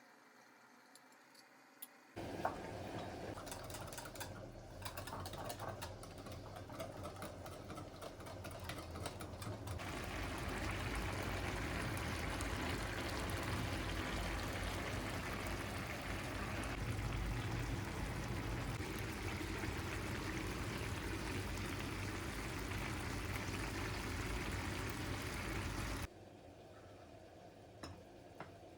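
Water running steadily from a kitchen tap, turned on suddenly about two seconds in with a few clinks, running harder from about ten seconds, and shut off abruptly near the end.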